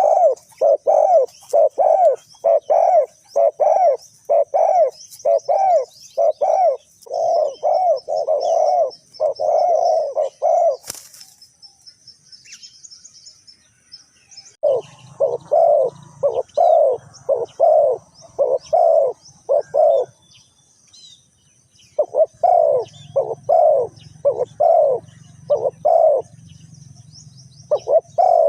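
Spotted dove cooing: a steady run of low, hollow coo notes, about two a second, in long bouts broken by pauses of a few seconds. Small birds chirp faintly and high-pitched in the background throughout, and a single sharp click comes about eleven seconds in.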